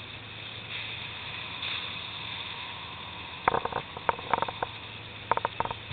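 A crab fishing boat's steady engine hum and the rush of water against the hull, then from about halfway several quick clusters of sharp, ringing clanks.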